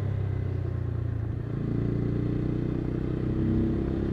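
Motorcycle engine running steadily while riding. Its note shifts about a second and a half in.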